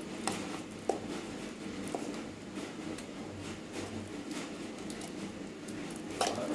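Spoon scraping thick chutney paste out of a stainless-steel mixer-grinder jar into a steel bowl: irregular light clicks and scrapes of metal on metal.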